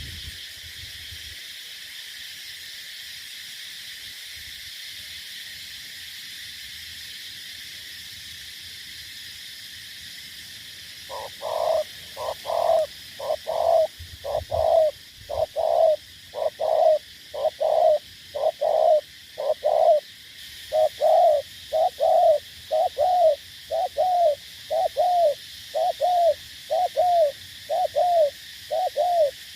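Spotted dove cooing: after about eleven seconds it starts a long, fast run of short coos, about two a second, with a brief break partway through. A steady high hiss lies underneath.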